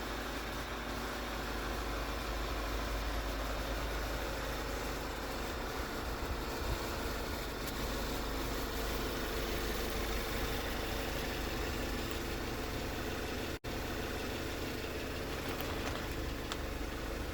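Volkswagen Tiguan 2.0 TSI turbocharged four-cylinder engine idling steadily on its freshly rebuilt cylinder head, the head that had bent valves.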